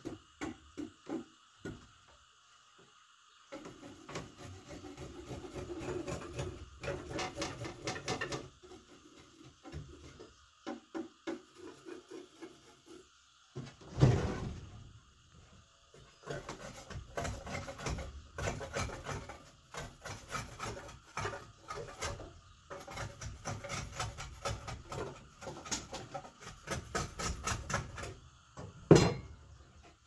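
Wood being worked by hand in bouts of quick, uneven rasping strokes, with two sharp loud knocks, one about halfway through and one near the end.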